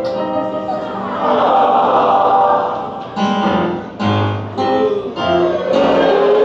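Music playing loudly with held notes, turning into short, broken-up phrases for a few seconds in the middle.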